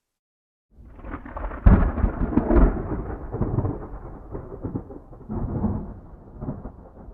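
A thunderclap: starts suddenly under a second in, hits its loudest cracks about two and two and a half seconds in, then rolls on as a low rumble with several swells, slowly dying away.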